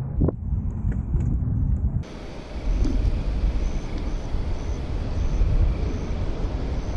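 Wind buffeting the microphone outdoors in a storm, a dense low rumble. The sound changes abruptly about two seconds in. After that a faint high chirp repeats about twice a second.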